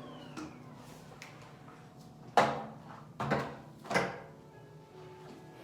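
A few knocks and clunks of objects being handled, three louder ones close together in the middle, over a faint background.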